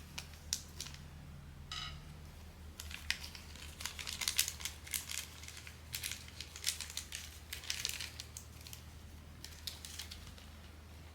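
Blind-box packaging crinkling and rustling in short bunches as it is unwrapped by hand, with a brief squeak about two seconds in.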